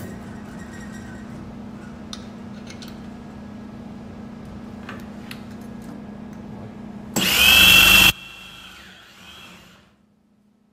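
Hitachi electric drill on a drilling jig running with a steady hum. About seven seconds in, it gives a loud, high-pitched whining burst of about a second as the bit cuts into a metal part, then the motor winds down and stops.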